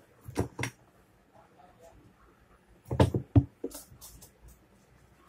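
Angle grinder parts, the metal motor housing and gear head, knocked and set down on a wooden workbench: two knocks near the start, then a quick cluster of four or five louder knocks about three seconds in, followed by a few lighter clatters.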